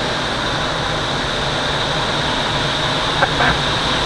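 Steady rush of airflow over a Twin Astir glider's canopy in gliding flight. A couple of short, faint, higher sounds come about three seconds in.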